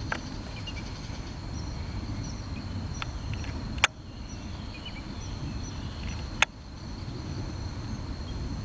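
Outdoor background: a steady low rumble under a continuous high insect trill, broken by a few sharp clicks, the loudest about four and six and a half seconds in.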